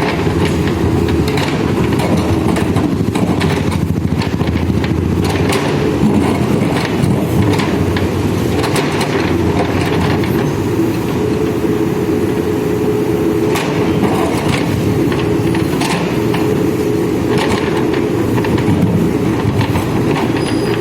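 Backhoe loader's diesel engine running steadily under working load, with scattered knocks and scrapes from the digging and loading.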